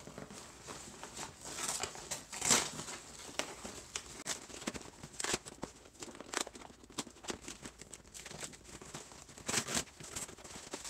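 Packaging crinkling and tearing as a parcel is opened by hand: irregular rustling, with the loudest rips about two and a half seconds in and again near the end.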